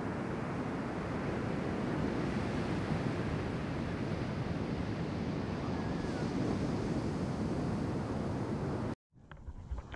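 Steady rush of ocean surf breaking on the shore, mixed with wind noise on the microphone. It cuts off suddenly near the end, and a few faint knocks and splashes follow.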